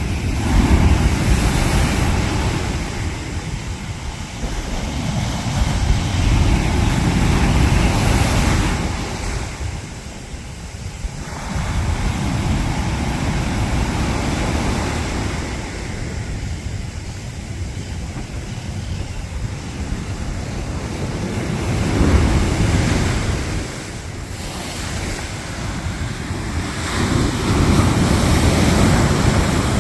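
Mediterranean surf breaking on the beach, with wind buffeting the microphone; the rush of the waves and wind swells and eases every few seconds.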